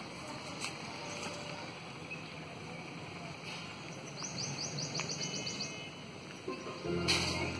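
Outdoor background noise with a bird's rapid trill for about a second and a half midway. Near the end, a steady low hum with several tones sets in, with a sharp click just after it starts.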